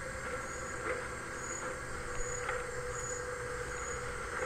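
Tractor engine running steadily as it pulls a forage harvester through a maize field, heard fairly faint, with a short high chirp repeating about twice a second and a couple of light knocks.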